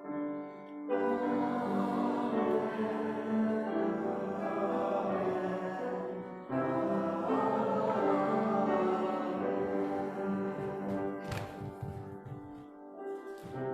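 Church music of sustained chords with voices singing, choir-like. New chords come in about a second in and again about six and a half seconds in, and the sound falls away near the end.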